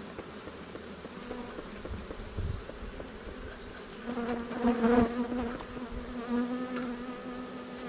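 Honeybees buzzing in a steady hum around an open hive, growing louder about halfway through, with a few light knocks.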